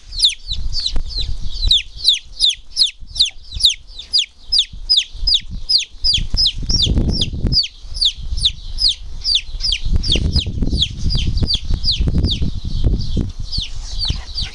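Young chick peeping loudly and without pause, about three high calls a second, each sliding down in pitch: the distress peeping of a lone chick.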